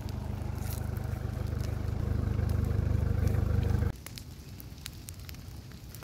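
A steady engine-like hum that grows louder, then cuts off abruptly about four seconds in, leaving a quieter stretch with scattered faint crackles and clicks.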